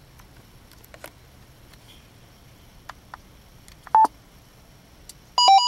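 Yaesu FTM-400DR touchscreen gives one short beep as the SEND key is pressed, about four seconds in. Near the end comes a quick, louder run of radio beeps that steps in pitch: the alert tones of Yaesu Fusion radios as a C4FM digital text message goes out and is received.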